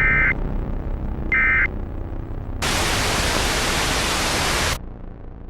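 Two short buzzy data bursts about a second and a half apart: Emergency Alert System SAME end-of-message tones signalling that the alert is over. A little over halfway, about two seconds of loud white-noise static starts and then cuts off abruptly, leaving a faint hiss.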